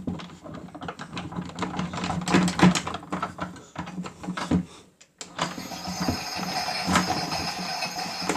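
Miele W1 toy washing machine running its cycle: a small motor hums under irregular clicks and knocks. About five seconds in it breaks off briefly, then resumes with a steadier whir.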